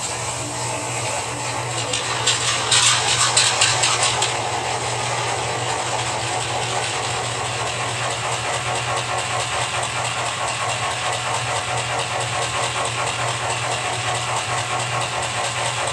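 Sound decoders in two Rapido SD10 model diesel locomotives playing diesel engine sound through their small speakers. There is a louder clattering stretch about two to four seconds in, then a steady idle with an even, throbbing rhythm.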